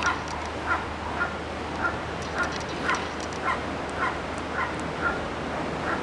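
Juvenile gull giving short, repeated begging calls, about two a second in a steady rhythm, while being hand-fed.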